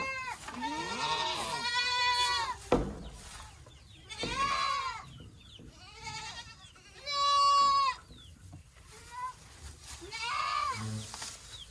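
Goat kids bleating: about five high-pitched calls, the loudest about seven seconds in, with a single sharp knock a little under three seconds in.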